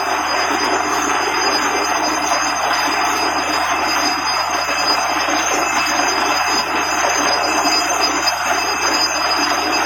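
Borewell drilling rig running steadily: a loud, continuous noisy din with a thin high whine over it, unchanging throughout.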